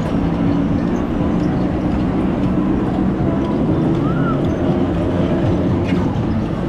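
Steady rumble and hum of a small battery-powered ride-on bumper car's electric motor and wheels rolling over tiled paving.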